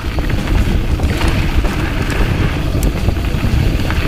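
Wind buffeting the microphone as a mountain bike coasts downhill on a dirt trail, with low rumble and scattered rattles from the bike over the ground.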